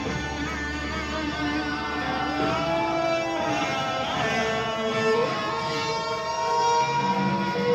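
Live band playing a quieter instrumental passage of a dark synth-rock song: electric guitar and keyboards hold long notes, with a few sliding pitches.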